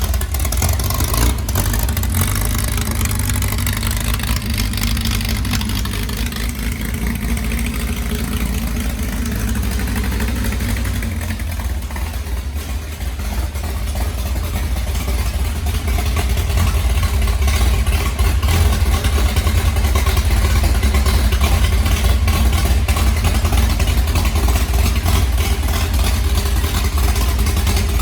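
Chrysler Hemi 265 straight-six engine running steadily with no speech over it, getting a little louder about halfway through.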